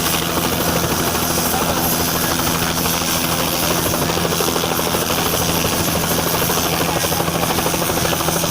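A helicopter running steadily and loudly, its rotor chop and engine whine continuous throughout.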